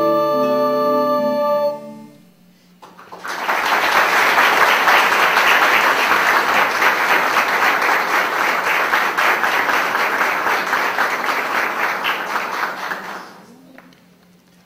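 A recorder ensemble holds its final chord, which stops about two seconds in. After a short pause an audience applauds for about ten seconds, then the applause dies away.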